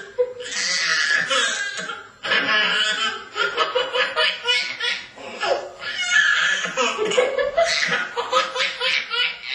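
A toddler laughing in repeated bouts of quick, rhythmic pulses, with short breaks about two seconds and five seconds in.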